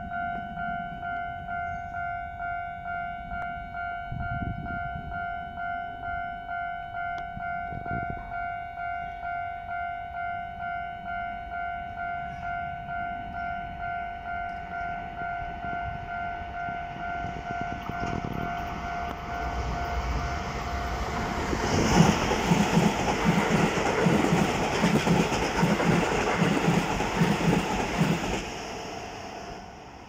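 Level-crossing warning bell ringing a steady, evenly repeated ding. About twenty seconds in, a Keisei 3100 series electric train passes at speed, loudest just after it arrives, its wheels clattering in a regular rhythm over the rail joints before the noise fades away.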